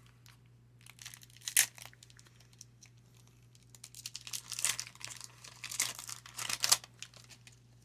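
Crinkling and tearing of a baseball-card pack wrapper as the pack and cards are handled. It comes in sharp bursts, one loud one about a second and a half in and a busy stretch from about four to seven seconds.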